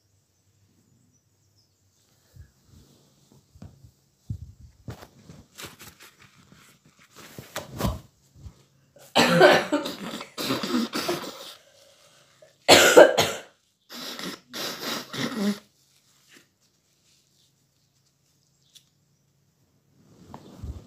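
A man coughing in several fits, the loudest about nine and thirteen seconds in, with softer coughs around them.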